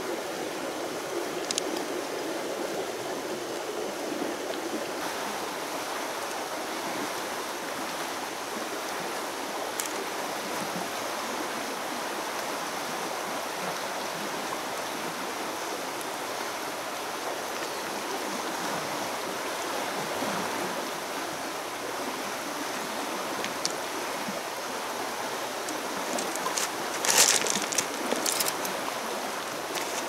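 Steady rush of flowing river water. Near the end, pebbles crunch and clack underfoot in a short cluster of sharp clicks.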